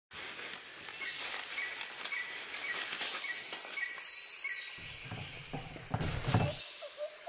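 Outdoor bush ambience with birds and insects chirping over a steady hiss, the chirps repeating about twice a second. About five seconds in, a wheelbarrow's wheel rolls and crunches over dry grass stubble as a low rumble, loudest just past six seconds.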